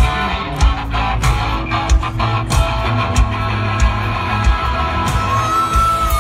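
Rock band playing live through a festival PA: strummed electric guitars over a steady drum beat, about three hits every two seconds. A high held note comes in near the end.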